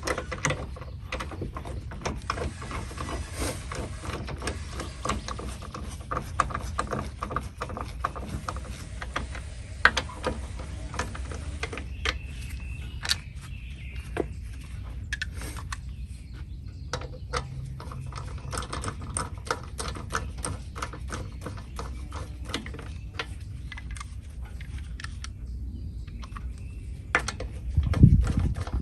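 Ratchet wrench clicking in quick runs as lug nuts are run down and tightened onto the wheel studs, with a louder knock near the end.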